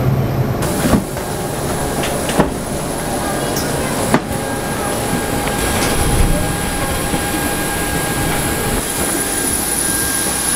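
Steady jet-aircraft noise on an airport apron: a low rumble under a high, steady whine. Sharp knocks come about one, two and a half, and four seconds in.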